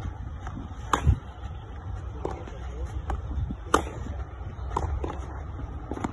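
Tennis ball struck hard with a racket on forehand groundstrokes, two loud crisp pops about three seconds apart, with fainter ball bounces and distant strikes from the other end of the court in between.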